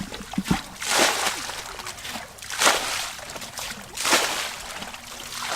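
Water sloshing and splashing in four heavy splashes, about a second and a half apart.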